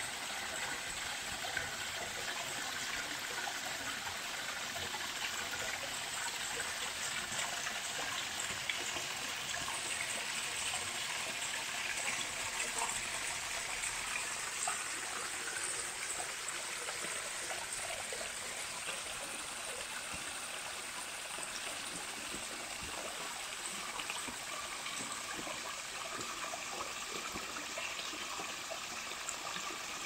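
Small mountain stream cascading over rocks: a steady, even rush of splashing and trickling water.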